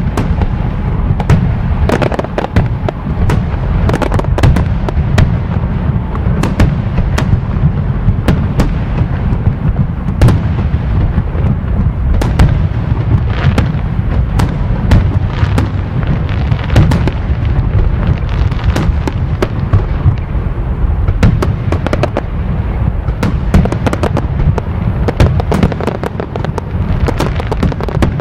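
A continuous fireworks barrage: dense, irregular crackles and bangs over a steady deep rumble.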